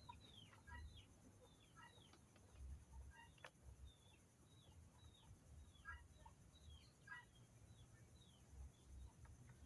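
Faint chicken calls: many short chirps that fall in pitch, repeated every second or so, with some clucking among them.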